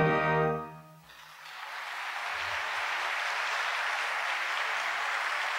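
The last held chord of the song fades out about a second in, then a theatre audience's applause builds and carries on steadily.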